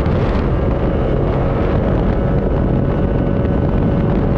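Stock Yamaha C40 two-stroke outboard motor running steadily as the speedboat moves under way, heard from aboard with wind on the microphone.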